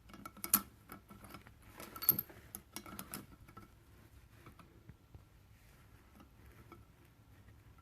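Sharp clicks and light taps of small metal parts and tools being handled during valve spring and keeper fitting, several close together in the first three seconds, then only faint scattered ticks.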